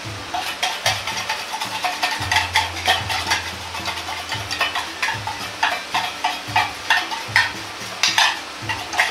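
Metal ladle clinking and scraping against a wok and a stainless steel bowl in a quick, uneven run of strokes, stirring water and brown sugar as they heat, with a light sizzle underneath.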